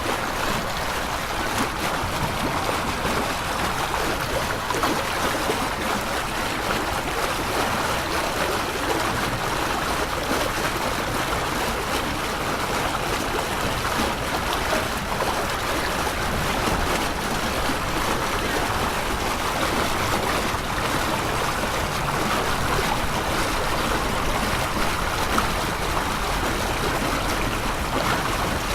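Sound-designed sci-fi spaceship engine-room ambience: a steady mid-pitched noise drone with slow swelling tones that change only gradually.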